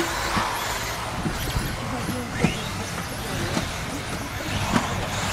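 Radio-controlled racing buggies running around the track: a steady din of small motors and tyres, with a few sharp knocks as the cars hit the track.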